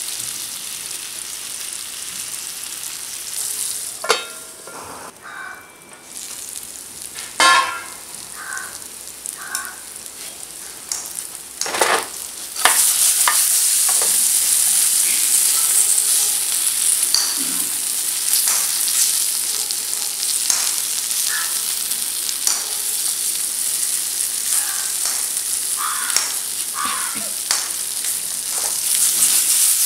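Raw banana slices shallow-frying in oil in a pan, sizzling, with wooden sticks knocking and scraping against the pan as the slices are turned. The sizzle is quieter with a few sharp knocks in the first half, then becomes suddenly louder and steady a little before halfway.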